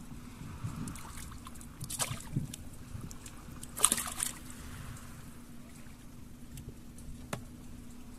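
Water sloshing and splashing as a catch is handled aboard a small boat, with two short, louder splashes about two and four seconds in, over a steady low hum.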